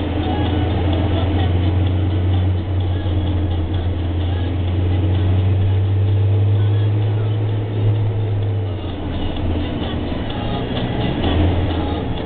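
Steady low drone of a running vehicle, its engine and road noise, which weakens and wavers about nine seconds in.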